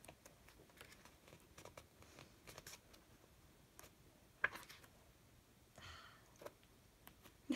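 Faint paper handling as pages of an album photo book are turned: soft rustles and small ticks, with one sharper paper snap about four and a half seconds in.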